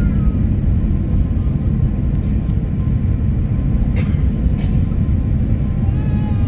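Steady low rumble of an airliner's cabin in flight, engine and airflow noise with a faint steady hum. Two light clicks come about four seconds in, and a faint voice is heard near the end.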